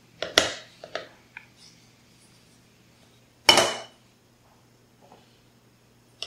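A bowl and a wooden spoon knocking against a metal pressure-cooker pot: a few light knocks in the first second or so, then one louder clatter about three and a half seconds in.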